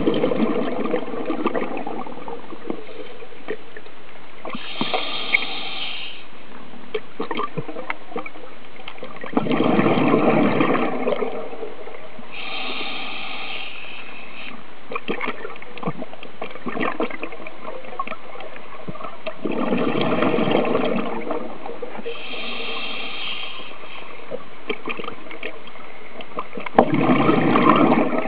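Scuba diver breathing through a regulator underwater: a higher hiss on each inhale and a longer gush of exhaled bubbles, one breath cycle roughly every ten seconds, over a steady underwater hiss.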